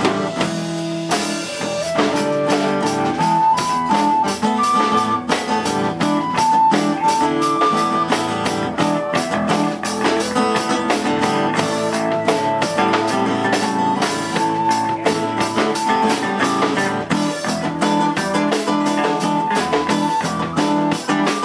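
Live band playing an instrumental passage: strummed acoustic guitar, electric bass and a drum kit, with a flute playing short held melody notes over them.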